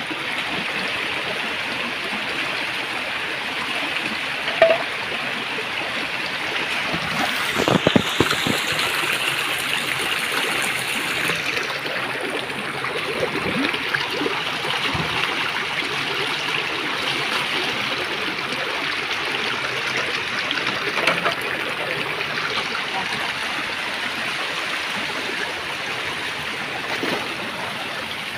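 Shallow stream running steadily over rocks, with feet wading through it and a brief cluster of splashes and knocks about eight seconds in.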